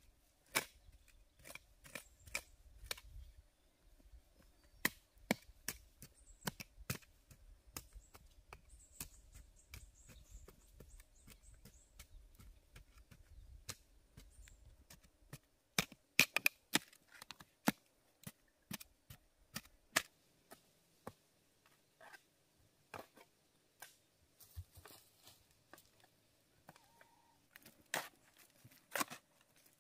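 A series of sharp, irregular knocks, about one a second, with a quick flurry of them about halfway through and again near the end.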